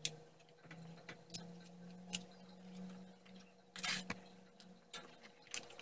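Faint, scattered clicks and taps of a spoon and hands against a stainless steel pot as a banana leaf is pressed down over the corn, with a short scraping burst about four seconds in, over a low steady hum.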